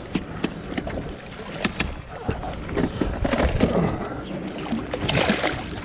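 A man's voice talking at a distance, loudest about three seconds in and again near the end, over steady wind and water noise, with scattered small clicks and knocks.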